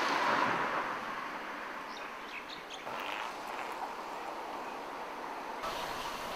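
Outdoor ambience, a steady rushing background, with a few short bird chirps about two to three seconds in. The background changes abruptly twice as the scenes cut.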